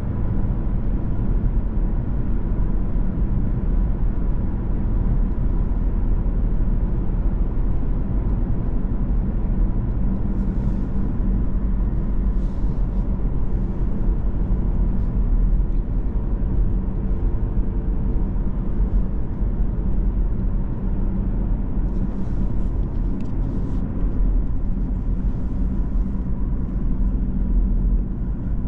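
Cabin sound of a 2017 BMW 116d cruising at motorway speed: a steady low rumble of tyre and road noise, wind noise and its 1.5-litre three-cylinder turbodiesel.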